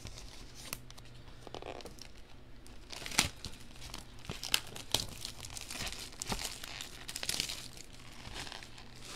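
A sealed trading-card box being torn open by hand: its wrapping crinkles and tears and its cardboard rips, in irregular crackles with a sharp snap about three seconds in.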